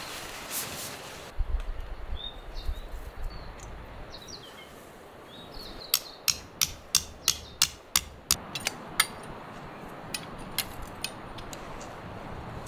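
Hammer driving a tent peg into the ground: about ten sharp strikes, roughly three a second, starting about halfway through, then a few lighter taps. A bird chirps briefly earlier on.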